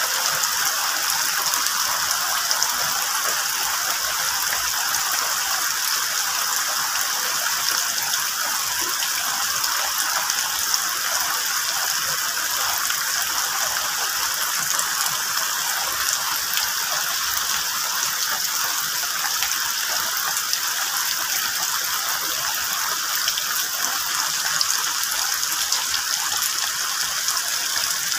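Steady rain falling on the leaves of a large tree and the plants around it: a dense, even hiss that holds without a break.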